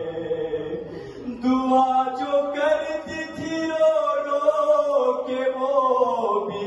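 A man's solo voice chanting an Urdu noha (lament) in long, drawn-out melodic notes whose pitch bends slowly up and down.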